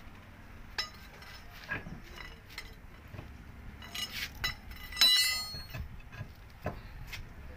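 Scattered metallic clinks and knocks as a heavy steel-rimmed truck wheel is handled and worked onto its hub. The loudest, a ringing clink, comes about five seconds in.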